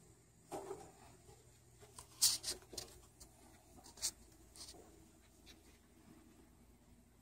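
Handling noise from a phone camera being moved around a quiet room: a soft bump near the start, then short scratchy rustles, a cluster about two seconds in and another about four seconds in.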